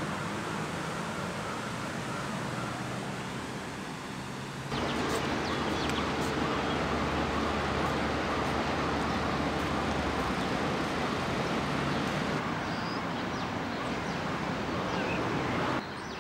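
Outdoor ambience of a seaside town: a steady wash of distant traffic with occasional bird calls. It becomes abruptly louder about five seconds in and drops back just before the end.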